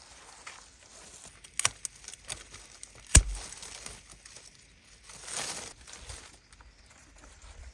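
Rose stems being cut and handled: a few sharp snips, the loudest about three seconds in, and a short rustle of leaves and stems a little after five seconds.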